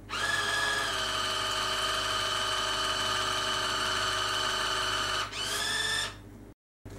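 Small electric pump of a shot-glass dispenser running as it fills a glass: a steady motor whine for about five seconds, then a brief dip and a shorter rising whine before it stops.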